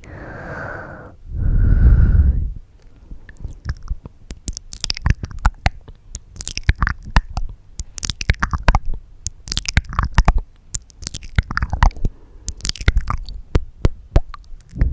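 Two heavy breaths right into the microphone, then a long run of wet mouth sounds: rapid tongue clicks and lip smacks coming in bunches.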